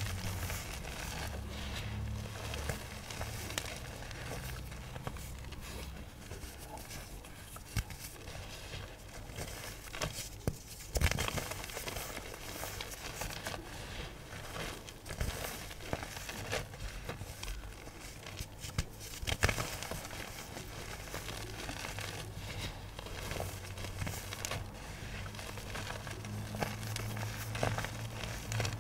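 Chalky iron oxide pigment chunks being crushed and crumbled by hand: a dense run of small crunches and crackles, with a few sharper cracks about eleven seconds in and again near twenty seconds.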